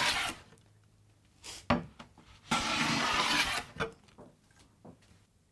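Hand plane taking shavings off the mitered edge of a walnut board while a 45-degree waterfall joint is trued up: one stroke ends right at the start, then a sharp knock, then a second stroke of about a second.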